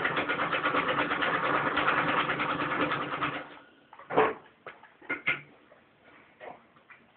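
1924 Singer 66 treadle sewing machine stitching at a fast, even rhythm through layers of denim, showing the machine is working. The stitching stops about three and a half seconds in, followed by a few separate clicks and knocks.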